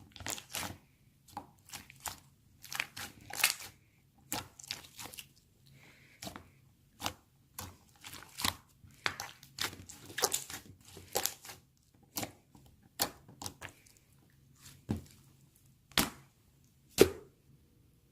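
Irregular crinkling and crackling handling noises: a quick, uneven run of short sharp clicks and rustles with brief pauses, the loudest single snap near the end.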